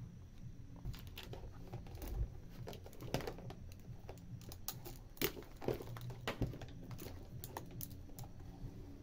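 Irregular small clicks and light knocks from a digital multimeter being handled: its rotary range switch is turned and its test leads are picked up. The sharpest clicks come a little after the middle.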